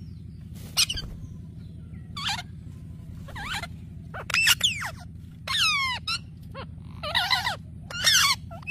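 Parrots giving a series of short squawks and whistling calls, about eight, their pitch sweeping up and down, over a steady low hum.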